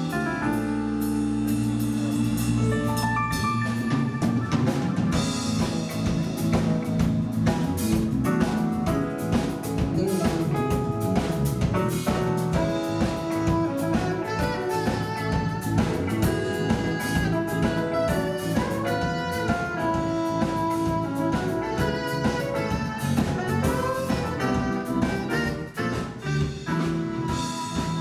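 Live jazz band playing: saxophone, electric guitar, bass and keyboards over a drum kit, with the drums coming in about half a second in.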